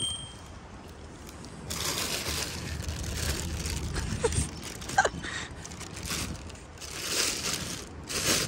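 Thin plastic bag crinkling and rustling in repeated bursts as a cat noses into it and tugs at it for the food inside, starting about two seconds in.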